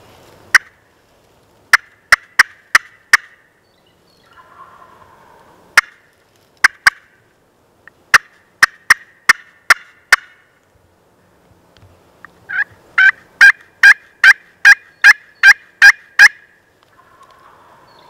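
Turkey yelps and sharp cutts, loud and close, in quick runs of notes. There are about five around two seconds in, six around eight to ten seconds, and a longer run of about a dozen near the end that builds louder. Fainter, lower sounds come between the runs.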